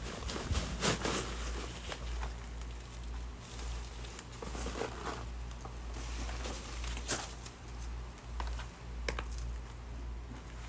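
Hands sifting through loose potting soil from a grow bag, feeling for potatoes: scattered crackling rustles and light taps, busiest about a second in, over a steady low hum.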